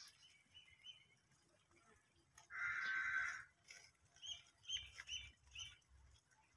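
Birds calling: a harsh call lasting about a second near the middle, then a quick run of four short high chirps.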